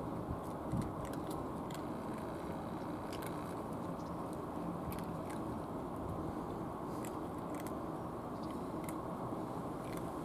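Several cats eating dry cat food: short crisp crunches scattered throughout, over a steady low rumble of background noise.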